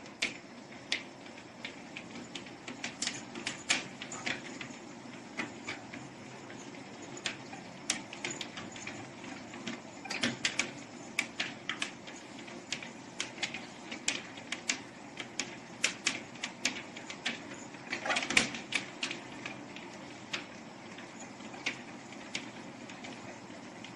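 A treadmill running with a steady hum, with irregular sharp clicks and taps of a dog's and a kitten's paws and claws on it, bunching into quick flurries a few times.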